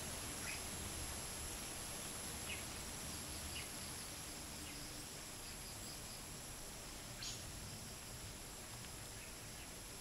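Faint insect chorus of crickets and cicadas making a steady high-pitched drone, with a few short bird chirps at intervals. The loudest chirp comes a little after seven seconds, over a low rumble of light wind.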